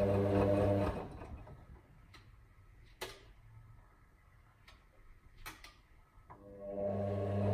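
Hotpoint WM63P washing machine's drum motor humming as it tumbles the wash, then stopping about a second in. The drum rests for several seconds, with a couple of sharp clicks, and the motor starts again near the end: the pause between tumbles in the wash cycle.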